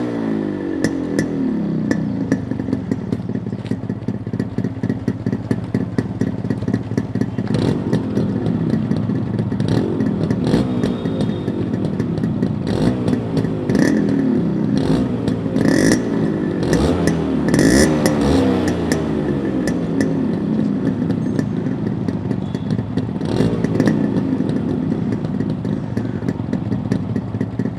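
Yamaha RX-series two-stroke single-cylinder motorcycle engine being blipped again and again. The pitch jumps up with each blip and falls back towards idle.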